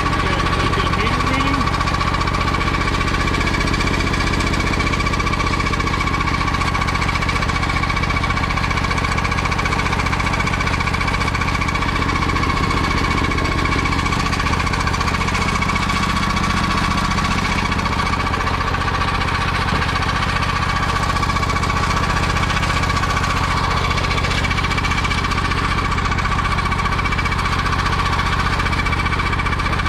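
Engine idling steadily just after a first start on a battery topped up by a 100-watt solar panel, with a rough, knocking beat and a steady high whine above it.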